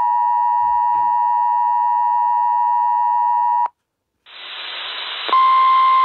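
EAS attention signal, the steady two-tone alert tone, stops abruptly about three and a half seconds in. After a brief silence, radio static hiss fades in, and a single steady tone comes on over the hiss near the end.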